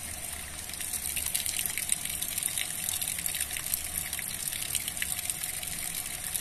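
Steady rush of water flowing at a dam spillway, a continuous splashing hiss. A low hum runs underneath until about four seconds in.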